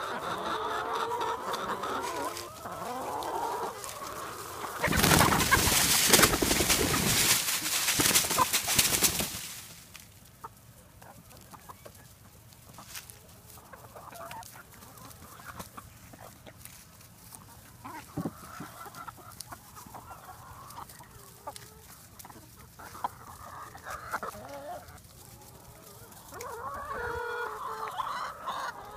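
A flock of hens clucking and calling, excited at being fed bread. The calling is densest at the start and again near the end, with quieter, scattered calls in between. About five seconds in, a loud rushing noise covers everything for about four seconds.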